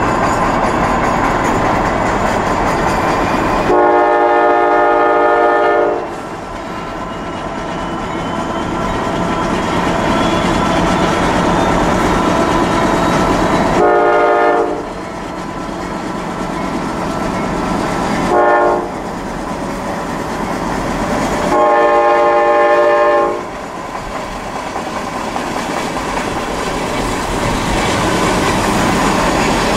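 A passing train rolls along the rails while a locomotive air horn sounds four times: long, long, short, long. This is the standard grade-crossing signal.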